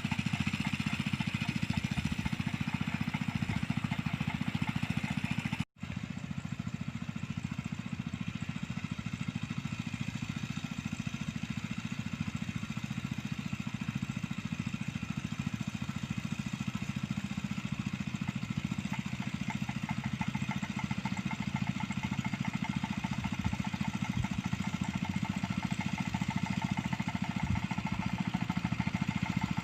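Small engine of a mini rice-field plough running steadily, cutting out for an instant about six seconds in.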